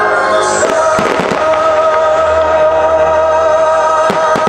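Aerial firework shells bursting with sharp bangs and crackles, a cluster about a second in and more near the end, over music with long held notes.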